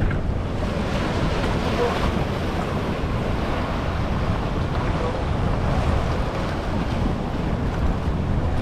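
Wind buffeting the microphone in a steady low rumble, over waves washing against the jetty's rocks.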